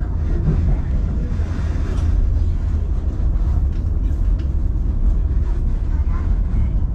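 Vintage passenger car on the narrow-gauge White Pass railway rolling along the track, a steady low rumble heard from inside the car.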